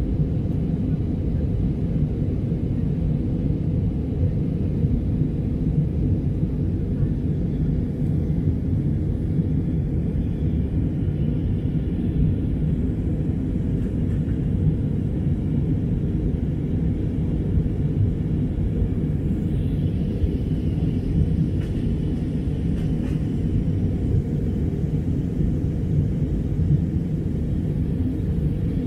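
Cabin noise inside an Airbus A319 shortly after takeoff: the jet engines and rushing air make a steady, even low rumble.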